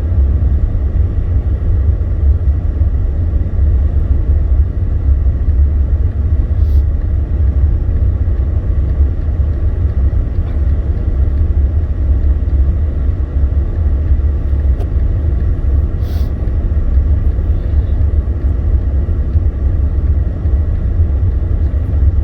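Steady low road rumble of a Jeep's engine and tyres, heard from inside the cabin while it drives slowly on a slippery, snow-covered road.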